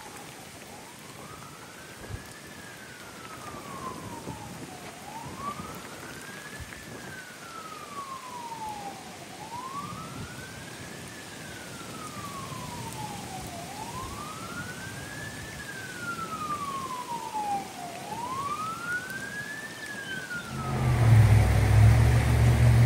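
An emergency vehicle's siren wailing, its pitch rising and falling slowly about every four seconds, over steady heavy rain. Near the end a sudden loud, low rushing noise takes over.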